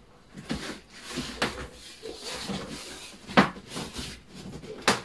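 Cardboard box being opened by hand: its top flaps scraped and pulled up, with rustling and several sharp cardboard knocks and snaps, the loudest about three and a half seconds in.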